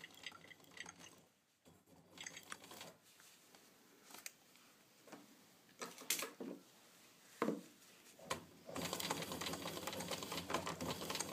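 Domestic sewing machine stitching through a cotton waistband, running in short stop-start bursts at first, then steadily for the last few seconds.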